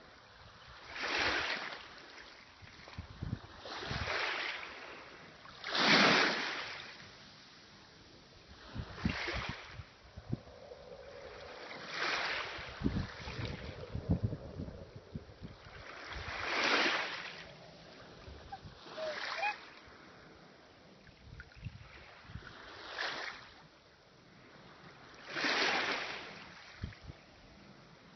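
Small waves washing over the shallows at the water's edge in regular surges, one about every three seconds, each swelling and fading over about a second, with low wind bumps on the microphone.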